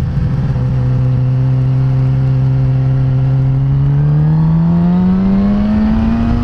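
2007 Suzuki GSX-R 750 sport bike's inline-four engine under way, heard from the rider's seat: an even note at steady throttle, then revving higher in gear about four seconds in as the bike accelerates.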